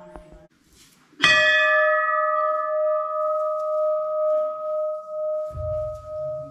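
A temple bell struck once about a second in, then ringing on in a long tone that fades slowly, its loudness pulsing as it dies away. The tail of an earlier ring dies out at the very start.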